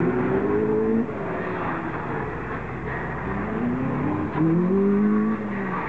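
Toyota Starlet hatchback's engine revving under hard acceleration. The pitch is high for the first second, drops off, then climbs again and holds high from about four and a half seconds before falling back near the end.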